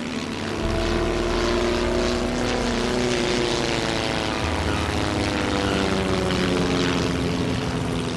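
A light propeller aircraft's engines running steadily, louder from about half a second in, with a music score of held, slowly shifting notes playing over it.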